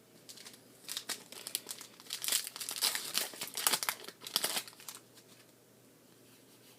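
Foil booster pack wrapper crinkling and crumpling for about four seconds, a dense crackle that starts about a second in and dies away near the end.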